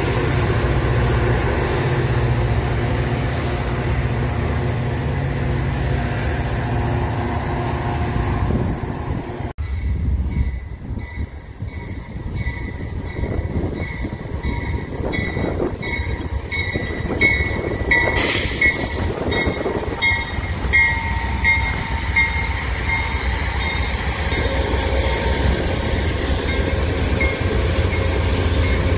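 Metra bilevel commuter train on the tracks, a steady rumble of wheels on rail, which cuts off suddenly about a third of the way in. After that a bell rings over a lower train rumble, struck again and again in a steady rhythm, with one sharp crack in the middle.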